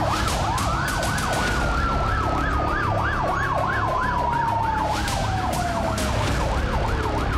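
Emergency vehicle sirens in street traffic. One wails rapidly up and down, about two to three times a second, while a second siren tone rises quickly and then slowly falls in pitch over several seconds, over a low traffic rumble.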